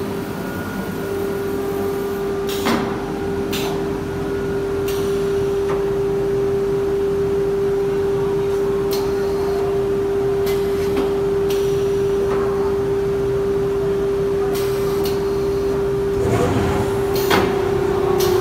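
Woodworking router center running, its spindle giving a steady high whine, with short hisses and clicks at intervals.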